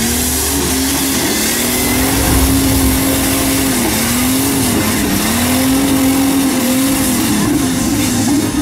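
Off-road race buggy's engine revving up and down repeatedly, its pitch rising and falling several times, as the buggy churns with wheels spinning in deep mud.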